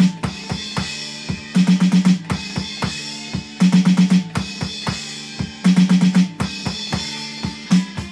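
Drum kit playing a hard-rock drum break: bass drum and cymbal wash, broken about every two seconds by a quick burst of rapid snare strokes.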